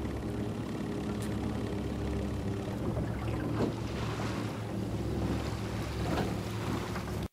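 Wind and water splashing around a small sailboat under way, with a few sharper splashes in the middle, over a steady low hum. The sound cuts off suddenly at the end.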